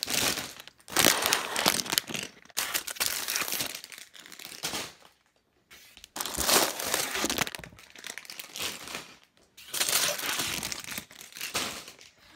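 Plastic bags of LEGO pieces crinkling and rustling as they are handled and pulled out of a box, in irregular bursts with a short pause about five seconds in.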